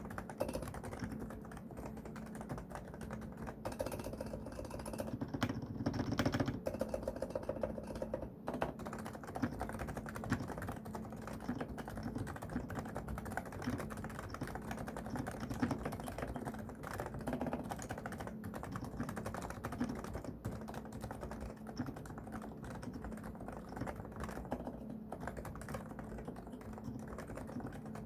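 Continuous typing on a Realforce R2SA silent keyboard with 45 g Topre electro-capacitive switches: a fast, steady stream of dull keystrokes without sharp clicks.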